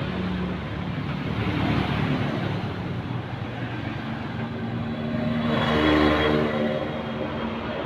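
A motor vehicle engine running, swelling to its loudest about six seconds in before easing off.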